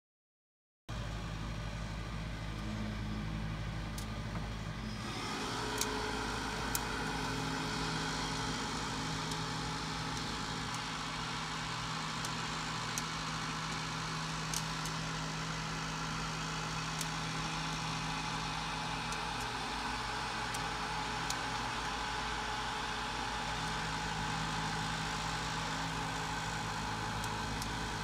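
Todd English Robo Cooker running steadily as it heats a pot of popcorn kernels, with a mechanical hum that starts about a second in and grows fuller about five seconds in. A few sharp ticks sound here and there. The kernels are not yet popping.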